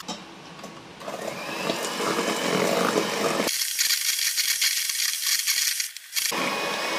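Electric hand mixer running, its beaters whirring and rattling in a stainless steel bowl as it beats butter, sugar and eggs until foamy. The sound starts about a second in and turns thinner and higher for a few seconds past the middle before filling out again.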